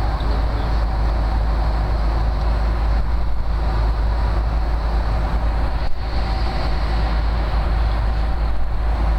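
Steady cabin noise of an airliner in flight, a low drone of engines and rushing air, with one brief knock about six seconds in.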